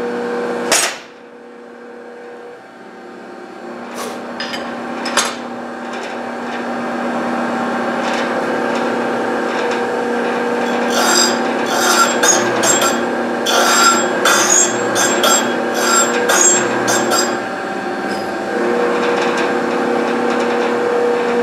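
Rod cap cutter running with a steady motor hum while a factory GM big-block Chevy connecting rod is clamped and fed across its cutter. A few sharp clicks come in the first seconds, then from about 11 to 17 seconds in an uneven scraping, grinding cut as the rod's parting face is taken down so it cleans up.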